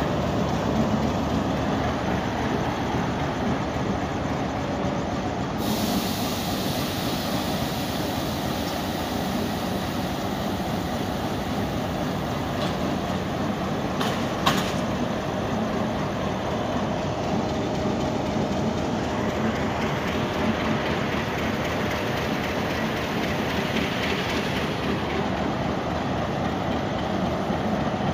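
Diesel locomotive running steadily with its train, a continuous engine drone mixed with rail noise, and a single sharp click about halfway through.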